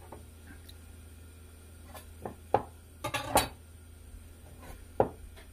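Scattered, irregular knocks and clatters of a kitchen knife and vegetables being handled and set down on a wooden cutting board, the loudest cluster about three seconds in.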